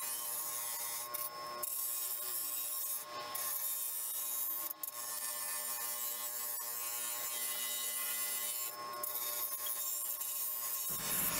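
An abrasive rubbing steadily over rusty sheet metal, rust being scrubbed off a gumball machine's parts, with a few short breaks in the strokes.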